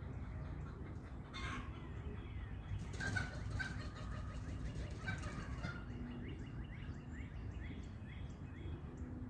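Outdoor ambience of birds calling: a few clear notes around three to four seconds in, then a run of quick, short high chirps, over a steady low rumble.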